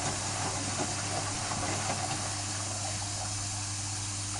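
Hotpoint Aquarius WMF520P washing machine running with a steady low hum and rushing noise from the drum. The machine has a bad drum spider, and the noise is more than worn bearings alone.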